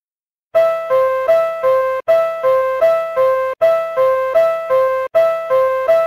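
Door-closing chime of a Mitsubishi Electric standard-type platform screen door, taken straight from its electronic sound unit: a two-tone "pin-pon pin-pon" phrase repeated four times back to back, starting about half a second in, warning that the platform doors are closing.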